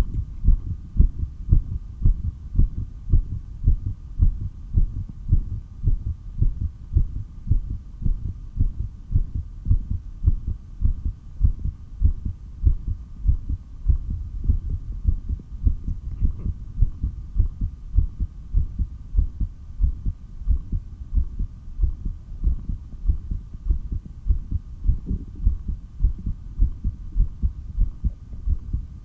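A human heartbeat heard through a stethoscope: strong, low thudding beats in a steady, even rhythm, with a faint steady hum behind them.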